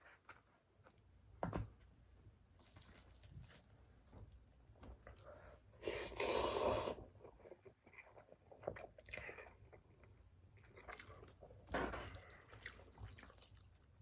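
A person eating a bowl of mixed jjajang and spicy stir-fried instant noodles close to the microphone: soft chewing and mouth clicks, with a louder noisy stretch of about a second around six seconds in and another a little before the end.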